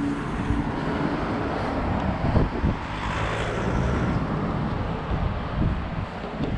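Street traffic noise, with a car passing on the road close by that swells about halfway through and fades. A couple of low thumps a little over two seconds in.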